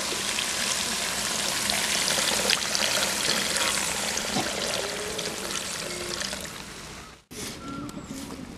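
Water poured in a steady stream into a kadai of fried spice masala, splashing into the thickening curry; the pouring stops abruptly about seven seconds in.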